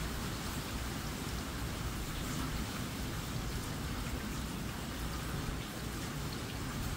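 Hurricane wind and rain: a steady rushing hiss over a low, fluttering rumble.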